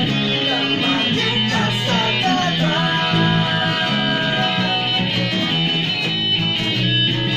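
A small band plays a song live, with an electric guitar, an acoustic guitar and an electric bass together, the bass holding sustained low notes under the guitars.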